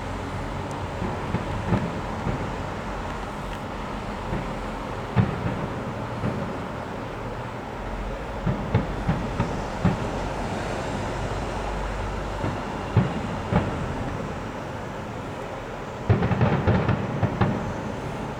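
Fireworks going off at a display: scattered sharp bangs over a steady rumble, ending in a rapid volley of bangs about two seconds before the end.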